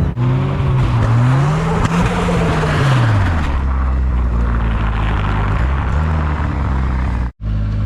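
Car engine revving: its pitch climbs to a peak about two seconds in, drops back about three seconds in, and then runs steadily at low revs, with a rushing hiss over it. The sound cuts out for an instant near the end.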